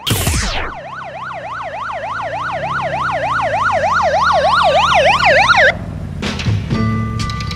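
Police siren in yelp mode: a fast up-and-down wail about four times a second, growing louder and then cutting off suddenly. Just before it comes a quick falling sweep, and music starts again near the end.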